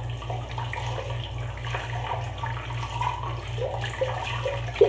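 Tap water running into a bathroom sink while water is splashed onto the face to rinse off soap, over a steady pulsing low hum.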